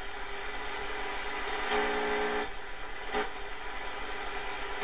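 Kenwood R-1000 communications receiver's speaker giving hiss and static with a low hum while tuned between medium-wave stations, with a brief snatch of a pitched signal about two seconds in and a sharp crackle just past three seconds.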